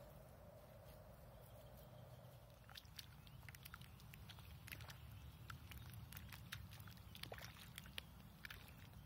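A hand stirring watery clay slurry in a small stone-lined pit: faint wet splashes and little ticks starting about three seconds in, over a low steady rumble.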